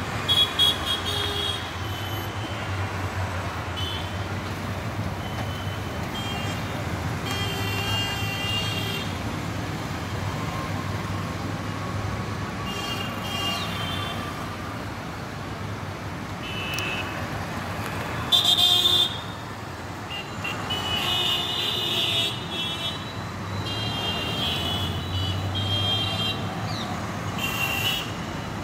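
Busy road traffic: motorcycles and other vehicles passing with a steady low rumble, and frequent short horn honks throughout. The loudest honks come just after the start and about two-thirds of the way through.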